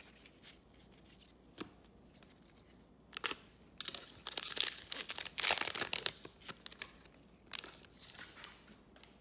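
A foil trading card pack being torn open, its wrapper tearing and crinkling for about three seconds starting about three seconds in, loudest near the middle. Soft clicks of cards being handled come before and after.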